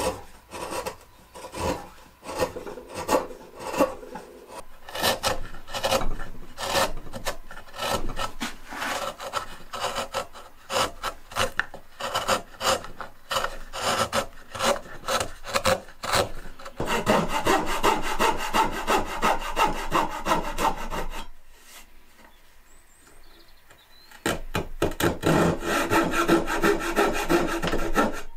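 Hand chisel paring old bed-frame timber in many short slicing cuts as it rounds the end of a scroll. Later the sound turns into steady back-and-forth coping saw strokes through the wood, pausing for a few seconds before the sawing resumes.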